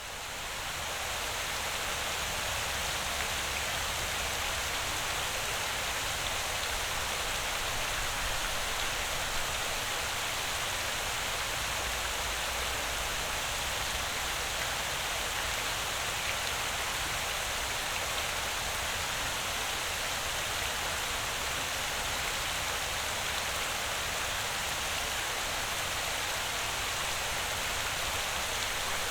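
Water fountain splashing, a steady dense hiss of falling water that fades in over the first second.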